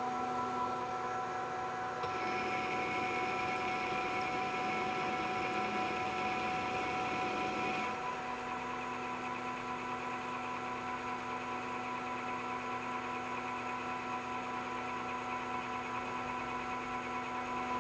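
Metal lathe running with a steady whine while turning a shoulder on a round part. A hissier layer over the whine drops away sharply about eight seconds in.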